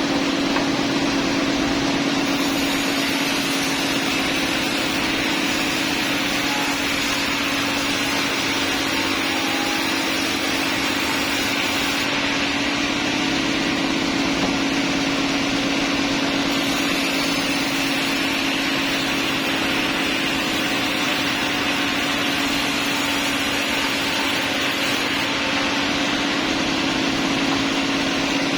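Sawmill machinery running steadily: a constant-pitched hum over a broad hiss, with the upper hiss stronger in some stretches than others.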